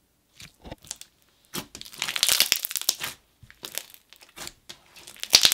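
Thick clear slime with fimo fruit slices being squeezed and pressed by hand, giving irregular crunchy crackles and small pops. It is loudest about two seconds in and again near the end.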